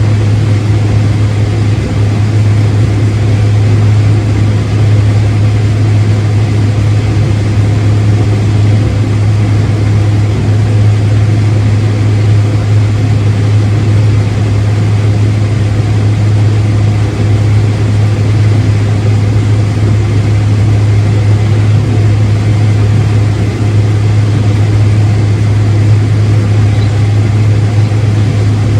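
Farm machinery engine running steadily under load, a constant low drone with no change in speed.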